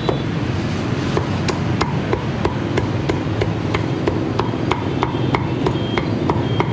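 Cleaver chopping crispy-skinned roast pork on a thick round wooden chopping board: sharp, even chops about three a second, over a steady low background hum.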